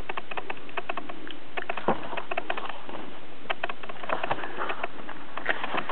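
Pages of a soft-cover paper booklet being handled and turned: irregular small clicks and crinkles over a steady background hiss.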